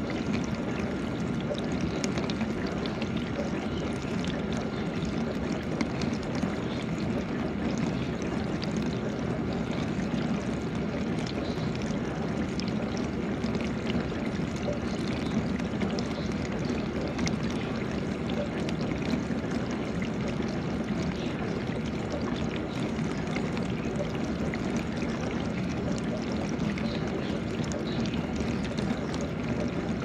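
GE dishwasher running mid-cycle: a steady rush and splash of water sprayed through the tub, with a low hum underneath.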